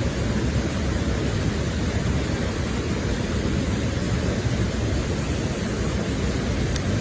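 Steady rushing of a mountain stream swollen after a typhoon, a loud even low-pitched noise. A faint click sounds near the end.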